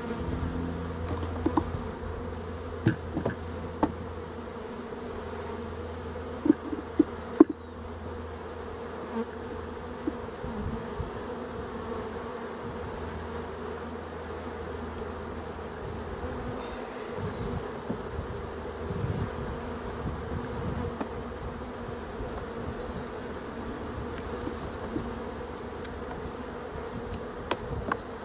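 Honeybees humming steadily over an open hive full of bees. A metal hive tool clicks and knocks against the wooden frames several times in the first eight seconds, loudest in a quick cluster of three knocks.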